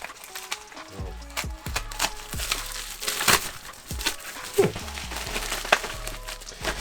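Plastic packaging crinkling and crackling in short irregular bursts as a small package is handled and opened, over steady background music.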